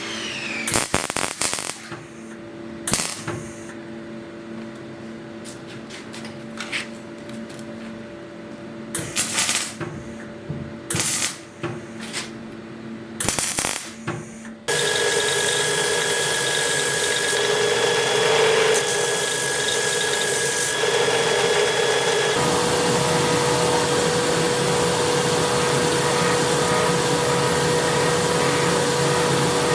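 Workshop tool noise: scattered sharp knocks and taps for about the first half, then about halfway through a power tool starts suddenly and runs steadily at a constant pitch to the end.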